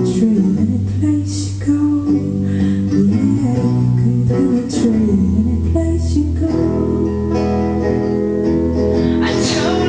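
Live song with electric guitar playing and a woman singing.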